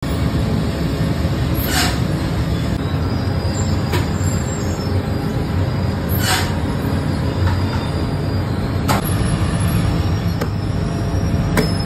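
Bakery dough machinery running with a steady low drone and hum, with a few brief sharp knocks every two to three seconds.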